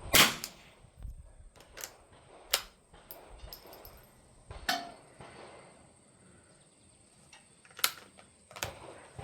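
A single .22 rimfire shot from a Winchester Model 52 bolt-action target rifle just after the start, followed by several smaller metallic clicks and knocks as the bolt is worked and the rifle handled.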